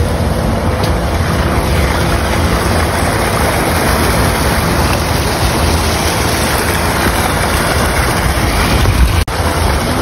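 Wind buffeting a phone's microphone: a steady rushing noise with a heavy low rumble, broken by a brief dropout a little past nine seconds in.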